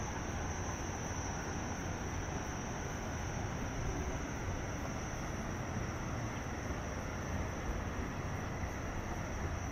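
Steady outdoor wash of rushing noise with a low rumble, and a steady high insect trill above it.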